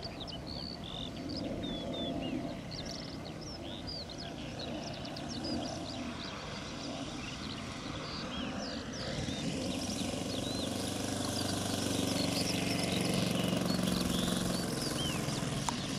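Engine of a large-scale RC P-51 Mustang model, a steady hum that grows louder in the second half as the plane comes in low with its gear down to land. Birds chirp throughout.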